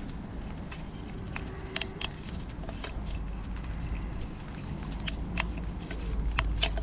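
Scattered small clicks and snaps of plastic and rubber as gloved fingers stretch a new rubber O-ring into the groove of a plastic oil filter housing cap. The louder clicks come in the second half, over a steady low background rumble.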